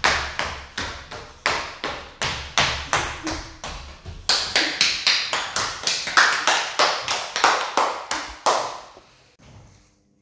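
A child hopping barefoot on one leg on a tiled floor: regular thudding landings, about three a second, for the first four seconds. Then comes a run of sharper hand claps at the same pace, ending about eight and a half seconds in.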